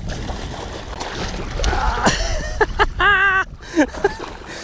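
Musky thrashing and splashing at the water's surface beside the boat as it is netted, with a loud wavering shout about three seconds in.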